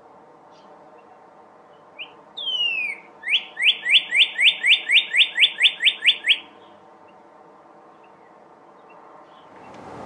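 Male northern cardinal singing: a short note, then one long down-slurred whistle, then a fast run of about a dozen rising notes at about four a second, ending about six seconds in.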